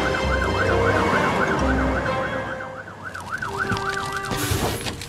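Cartoon fire-truck siren wailing quickly up and down, about three times a second, until shortly before the end. A low engine-like rumble runs under it for the first two seconds, and a brief rush of noise follows the siren.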